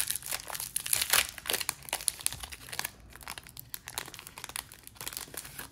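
Foil wrapper of a Panini Donruss Optic UFC hanger pack being torn open and crinkled by hand, a run of quick crackles, loudest in the first two seconds and softer after.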